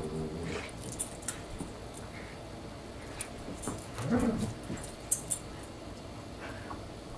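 Two husky-type dogs play-wrestling, giving two short low vocalizations, one at the start and one about four seconds in, among scattered sharp clicks and light jingling.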